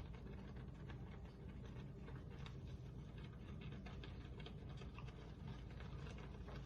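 Ghee heating in a pan on low heat, giving a faint, irregular crackle of tiny pops throughout, over a steady low hum.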